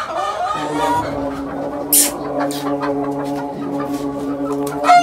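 Young roosters clucking and calling, with a short rising call just before the first second. Under them is a steady low drone from an unseen source, and there are two sharp clicks, about two seconds in and at the end.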